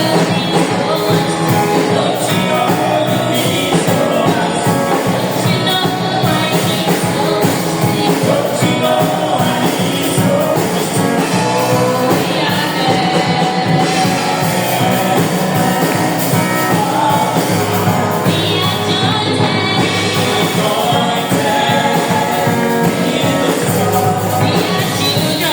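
Church music: a band playing with singing, a full steady sound with a sustained bass line.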